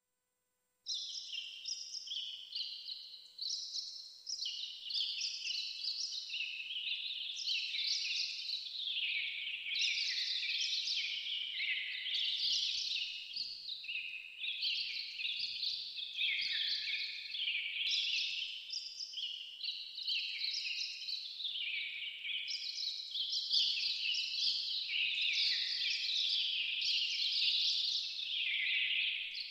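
A dense chorus of high-pitched chirping, like a flock of birds calling all at once, with many short, overlapping, falling notes. It starts suddenly about a second in.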